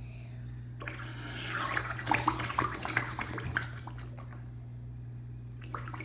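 Air blown through a drinking straw into a puddle of green slime: a hiss of air, then a quick run of wet bubbling pops. It starts about a second in and dies away after about three seconds.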